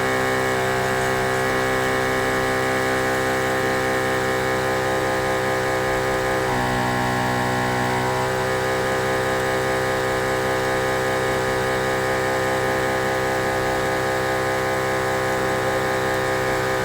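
Motor of an OM518 Plus LCD separating machine running with a steady hum made of many tones. About six and a half seconds in, a louder, higher motor tone joins for about two seconds, then drops away.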